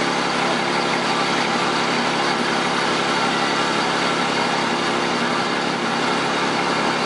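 Bucket truck engine idling steadily, an even hum that holds constant throughout.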